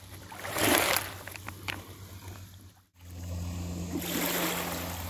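Small waves lapping on a pebble shore, with a steady low wind rumble on the microphone. In the first two seconds there is a swell of noise and a few sharp clicks, and the sound drops out briefly about three seconds in.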